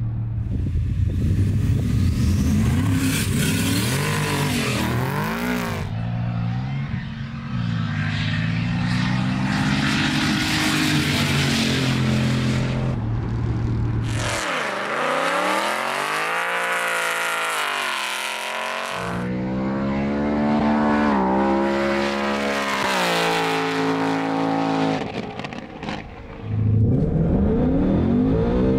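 V8 performance cars accelerating hard down a runway drag strip, the engine note climbing through each gear and dropping back at each shift. Near the end a V8 is heard from inside the cabin of a Ford Mustang.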